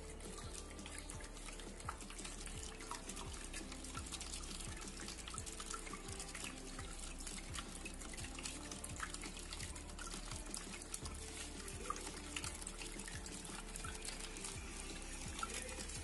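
Water trickling and splashing steadily down a small homemade cement waterfall fountain, with many small drips and plinks.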